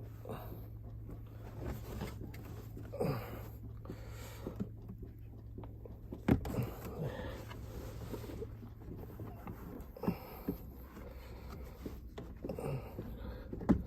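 Scattered plastic clicks and knocks of a car's glove compartment and cabin air filter cover being handled and unlatched, over a low steady hum.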